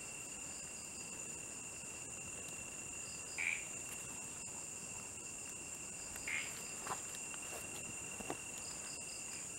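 Night insect chorus: crickets trilling steadily on several high pitches, with a faster pulsing trill above. A couple of brief louder sounds cut in, about three and a half and six seconds in, with a few faint ticks.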